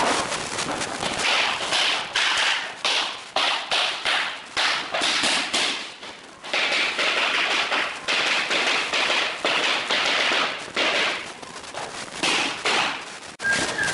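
Claw hammer knocking laminate floor planks together to lock their joints: a string of sharp irregular knocks, about one or two a second, each ringing on briefly, with a short pause midway.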